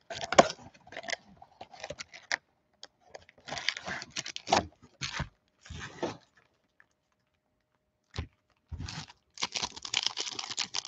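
Cardboard mega box of Panini Select football cards being torn open by hand and its foil card packs rustling and crinkling as they are pulled out and set down, in irregular bursts with a brief pause and a single click before the rustling resumes.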